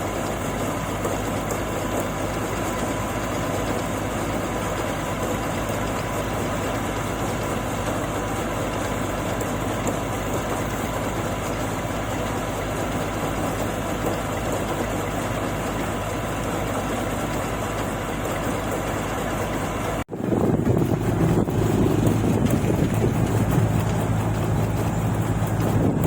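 Engine of paddy harvesting machinery running steadily. About 20 seconds in, the sound cuts abruptly to a louder, closer engine with a steady low hum.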